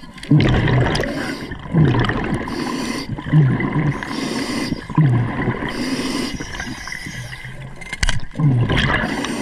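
Scuba regulator breathing heard underwater: a bubbly, gurgling exhale about every second and a half, with a few hissing inhales between them.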